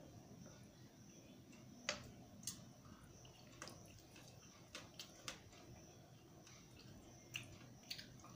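Quiet eating sounds from rice and dal being mixed by hand on a steel plate and eaten: scattered small clicks and mouth smacks, several in all, over a faint steady background hum.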